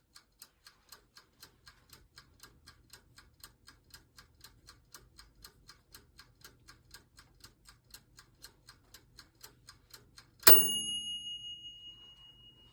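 Toaster oven's mechanical wind-up timer ticking steadily at about four ticks a second. Near the end the bell strikes once, loudly, and rings out over about two seconds, signalling that the set time has run out.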